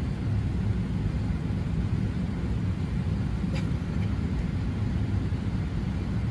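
Steady low rumble inside the passenger cabin of an Emirates Airbus A380, the engines and airframe heard from a seat, with one faint click a little over halfway through.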